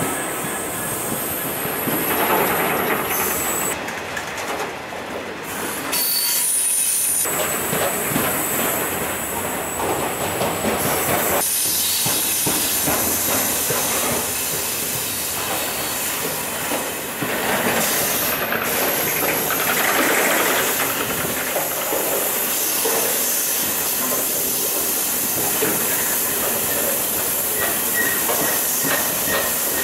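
A long rake of covered bogie hopper wagons rolling past at close range: a steady rumble and clatter of steel wheels on rail, with a thin, high wheel squeal through the first half.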